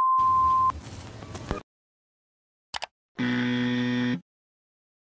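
Glitch sound effects: a steady test-pattern beep cuts off under a second in and gives way to a burst of TV static that stops about a second later. After a pause comes a short click, then a buzzer sounds for about a second.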